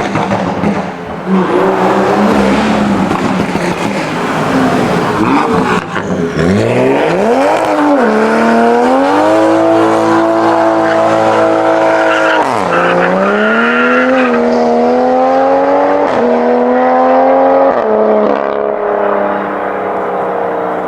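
Modified Toyota GR Supra engine revving hard with a rushing tyre noise at first, then the engine note climbs steeply and holds high. It drops sharply about twelve seconds in, climbs again, and steps down twice near the end.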